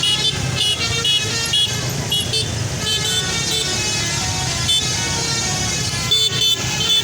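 A bus's musical basuri (telolet) horn playing a run of short, high toots over a steady rumble of engine and traffic.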